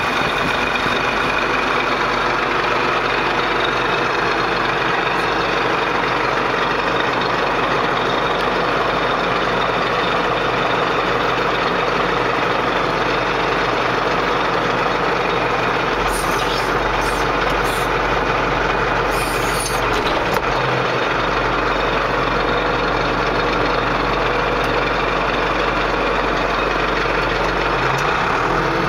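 Zetor 8641 tractor's diesel engine running steadily, heard from inside the cab. A few brief high-pitched bursts of noise come about two-thirds of the way through.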